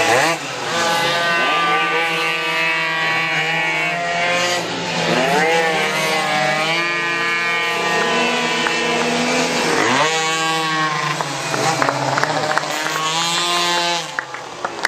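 Racing pocket bikes' small two-stroke engines screaming at high revs, several at once, the pitch repeatedly falling as they back off for the corner and climbing again as they accelerate away. Near the end the engine note drops and sharp popping clicks come through.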